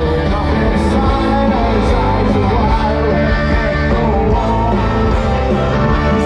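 Rock music: a song with electric guitar and a singing voice over a steady bass line.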